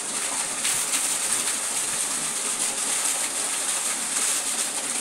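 Steady rushing, hissing water noise with no clear strokes or breaks.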